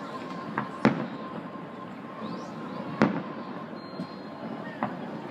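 Aerial firework shells bursting: two loud bangs about two seconds apart, with a couple of fainter pops before and after.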